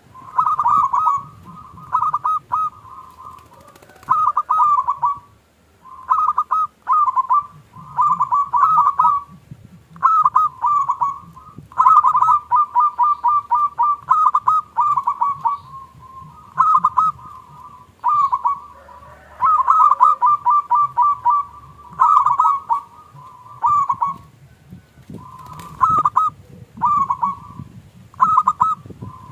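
Zebra dove (perkutut) cooing: phrases of rapid, stuttering coo notes about a second long, repeated over and over with short pauses between them.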